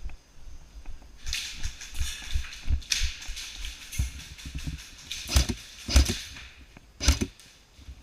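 Rustling and repeated dull thumps of an airsoft player on the move with a body-worn camera, with a few sharp cracks or knocks in the second half.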